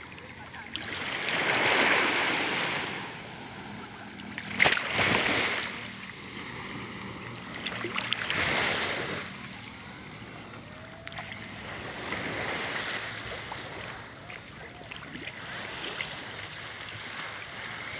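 Calm sea water washing and lapping close by, swelling and fading every few seconds. Near the end a run of sharp ticks comes about twice a second.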